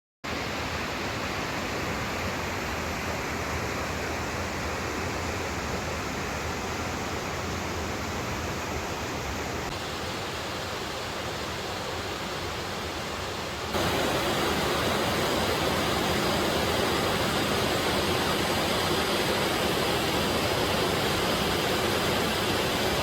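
Waterfall water rushing in a steady, even noise, which becomes suddenly louder about fourteen seconds in.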